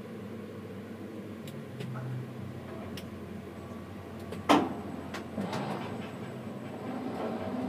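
Steady low machine hum inside a tower crane's cab, with scattered clicks and one sharp knock about four and a half seconds in.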